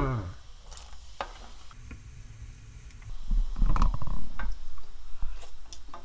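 Pot of water at a rolling boil, with a few light clicks of a spoon against the pot during seasoning. About three seconds in, a stretch of low rumble with a brief voice.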